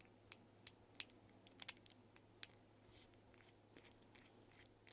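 Near silence with faint, irregular small clicks and taps, over a low steady hum.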